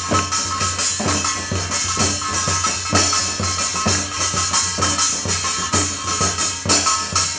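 Live percussion music with a fast, steady beat: a Korean barrel drum (buk) struck with a stick, a drum kit with cymbals and a shaken tambourine, over a few steady sustained tones.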